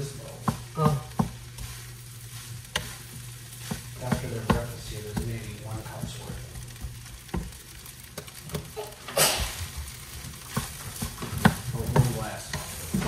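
Nasi goreng (fried rice) sizzling in a frying pan as a wooden spatula stirs and turns it, with frequent light scrapes and knocks against the pan and a brief louder hiss about nine seconds in.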